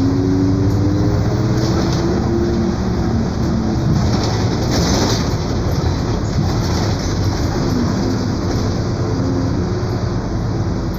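Mercedes-Benz OF 1721 BlueTec 5 bus running, with a steady rumble and a wavering whining hum from its rear differential, which is growling. The hum is strongest in the first couple of seconds and comes back faintly later.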